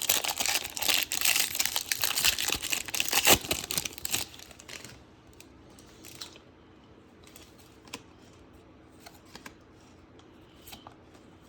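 The plastic wrapper of a Topps baseball card pack being torn open and crinkled for about four seconds. After that come a few soft clicks as the cards are handled.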